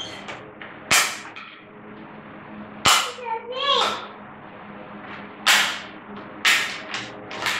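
Small hard plastic toys knocked and set down on a table, about five sharp clacks one to two seconds apart.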